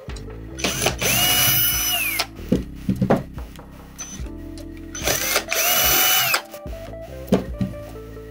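Cordless drill/driver backing screws out of the metal side of a printer fuser unit, run twice for about a second each: the motor whine rises, holds steady and falls away as the trigger is released. A few sharp clicks of handling come between the runs.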